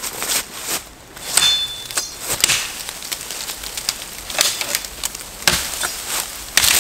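A machete chopping through small branches and brush: several sharp chops spread out over a few seconds, with twigs and leaves crackling between them.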